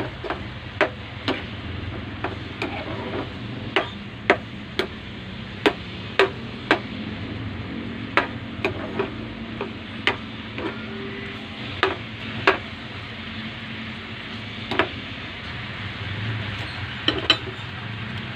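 A metal spoon clinking and knocking against a frying pan as beef and onions in sauce are stirred: about twenty sharp clinks at irregular intervals, with a lull late on. Under them runs the steady bubbling of the simmering sauce.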